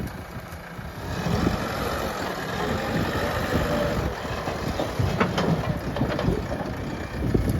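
JCB 3DX backhoe loader's diesel engine running, getting louder about a second in, with uneven low rumbling.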